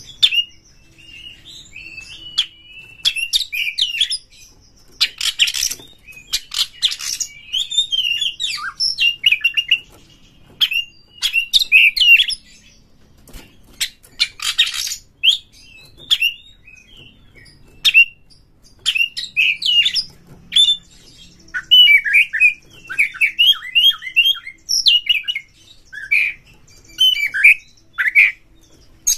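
Oriental magpie-robin singing in rapid, varied bursts of short chirps and whistled notes, with a few longer harsh, noisy calls among them.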